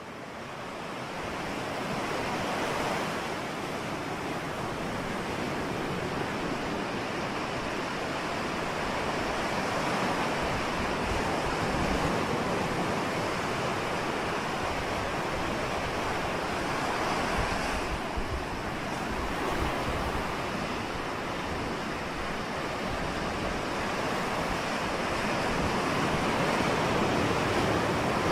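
Ocean surf: a continuous wash of waves breaking and rolling in, fading in at the start and then holding steady with gentle swells.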